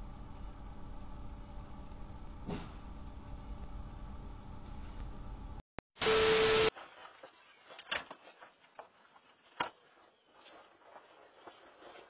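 Steady low rumble with a thin high whine, cut off by a short, loud burst of TV static with a steady beep about six seconds in: a glitch transition sound effect. Faint scattered clicks and rustles follow.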